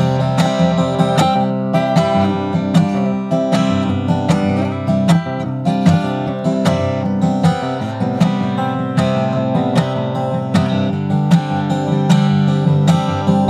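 Steel-string dreadnought acoustic guitar, freshly restrung, played with a steady rhythmic strum of ringing chords.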